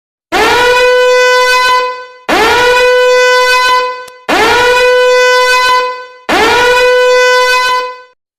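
A horn sound effect: four identical blasts, each about two seconds long, with the pitch scooping up at the start of each and then holding one steady note.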